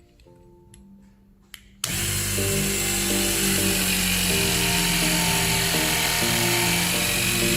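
A battery-powered hydraulic cable cutting tool's electric pump motor starts suddenly about two seconds in and runs steadily and loudly, driving the cutting head. A few light clicks come before it, and background music plays throughout.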